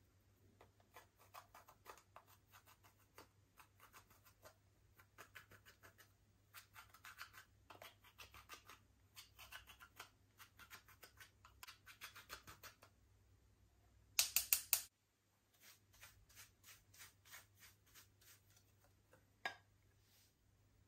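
Slime being worked by hand, giving off a run of small crackling clicks and pops, with a much louder burst of crackles about fourteen seconds in.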